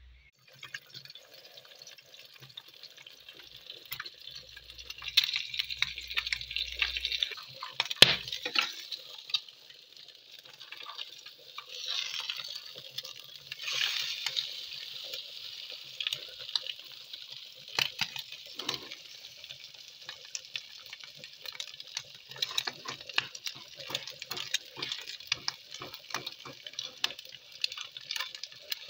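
Egg frying in hot oil in a pan, sizzling steadily, with a metal spoon or spatula scraping and tapping against the pan many times.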